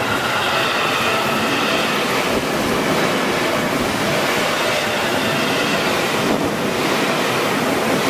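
Seibu Ikebukuro Line electric commuter train running through a level crossing close by, a loud, steady rush of wheels on rail.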